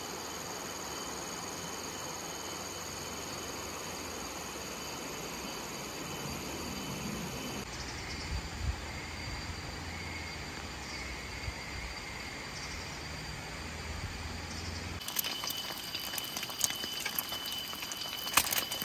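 Shallow forest river flowing, with a steady high-pitched insect drone over it. Near the end, an egg frying in oil in a pan, sizzling and crackling.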